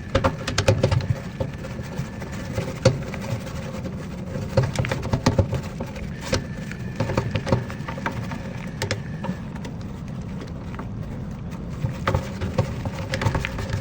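A brush worked through a doll's degreaser-soaked, glue-sticky hair, an irregular run of scratchy strokes and small clicks over a low rumble.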